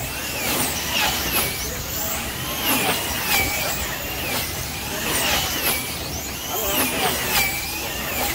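Wing-class slot cars racing on a large multi-lane track. Their small electric motors whine in pitch sweeps that rise and fall about once a second as the cars accelerate down the straights and brake into the turns.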